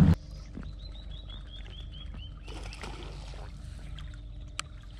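A bird calling a quick run of about eight short, high, downslurred notes in the first half, over the low steady hum of the bass boat's motor. A few light knocks and rustles on the boat follow later.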